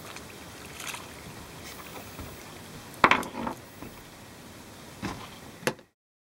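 Steady wash of water around a small fishing boat, with a few sharp knocks, the loudest about three seconds in. The sound cuts off abruptly near the end.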